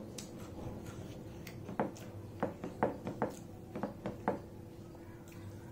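Close-miked eating by hand: a run of short wet clicks and smacks from chewing and handling food, about nine of them, most between about two and four and a half seconds in, over a steady low hum.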